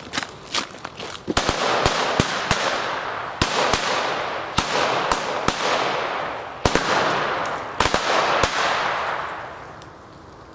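Nico Knallgurt firecracker belt going off: a fast, dense run of bangs that blur into a crackle, with louder single cracks standing out, dying away about nine seconds in. Punchy, with a high pace of bangs.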